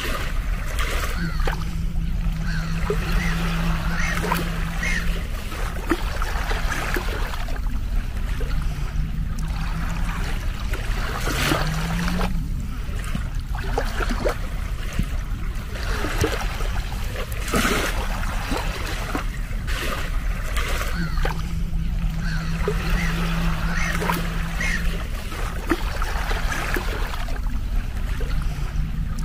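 Small waves of the Gulf of Riga lapping and splashing on a sandy beach. A low steady drone comes and goes several times, once rising in pitch.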